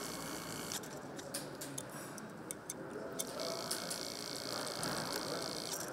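Engine assembly hall ambience: a steady background hum with scattered light metallic clicks, and a high steady hiss that stops about a second in and returns past halfway.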